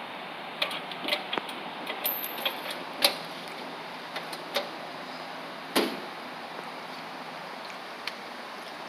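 Scattered light clicks and knocks from a vending machine's buttons and mechanism while a purchase is made, over a steady background hum, with a heavier knock about six seconds in.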